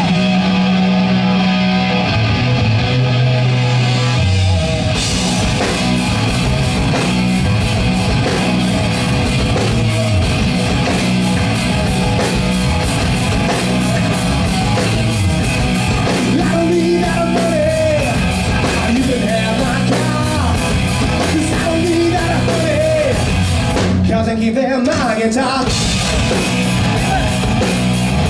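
Live rock band playing: electric guitars, bass guitar and drums. The first few seconds are a guitar and bass riff, and the drums and cymbals come in about five seconds in. About four seconds before the end the band stops briefly, then comes back in.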